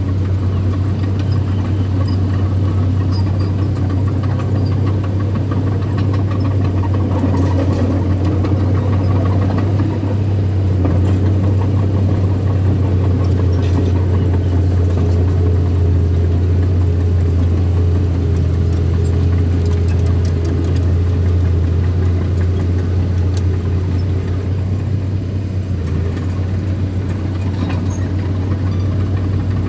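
Small bulldozer's engine running steadily with a strong low drone.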